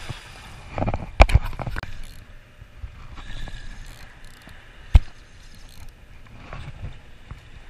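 Spinning reel being cranked under the load of a hooked smallmouth bass, its gears turning steadily. Sharp knocks come just after a second in and again about five seconds in.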